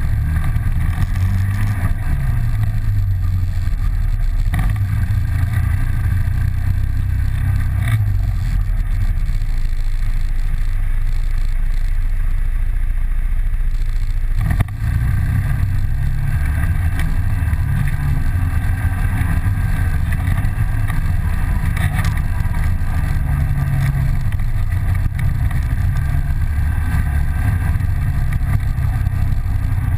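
Polaris 800 twin off-road vehicle's twin-cylinder engine running steadily while under way, with a brief dip in level about halfway through.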